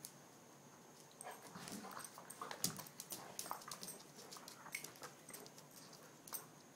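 Two dogs play-wrestling on a concrete floor: scuffling and mouthing, with a busy run of quick clicks and short whimpering sounds from about a second in until about five and a half seconds in, then one last click.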